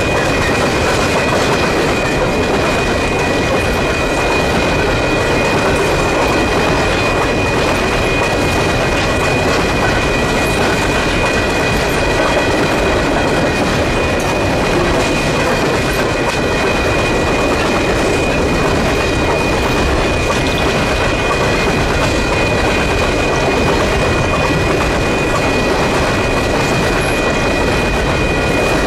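Empty coal train cars rolling steadily past at close range, a constant loud rumble and clatter of steel wheels on rail, with a thin steady high-pitched whine over it.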